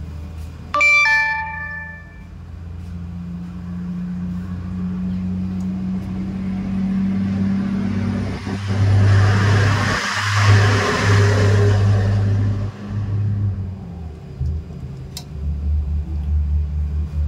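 A single bell-like ding about a second in, then a steady low engine rumble with a hiss that swells and fades around the middle, as of a motor vehicle passing close by.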